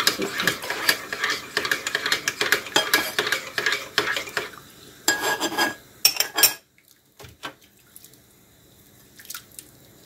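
A spoon scraping and clinking against a frying pan as fried vegetables are scraped out of it into a soup pot. It is rapid and continuous for about four seconds, with a couple more short bursts of scraping around five and six seconds in, then goes mostly quiet with a few faint taps near the end.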